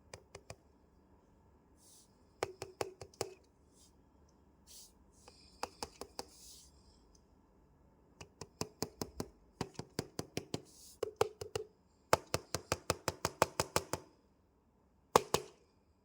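Bursts of quick, light taps or clicks on a small hard hollow object, about six or seven to the second, with a single sharper knock near the end.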